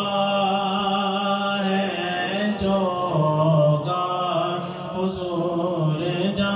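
A man singing a naat solo, without instruments, holding long drawn-out notes that bend and glide in pitch.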